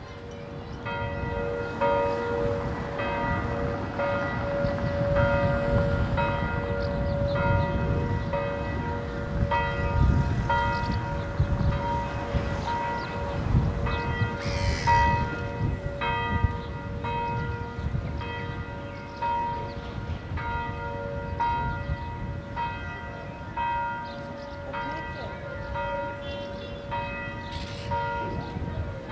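Church bells ringing, several bells of different pitch striking about one to two times a second, each stroke ringing on, over a low rumble.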